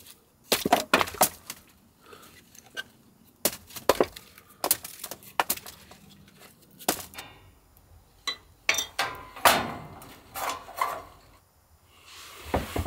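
Hatchet splitting compressed sawdust briquettes on a wooden chopping block: a series of sharp, irregular chops and cracks.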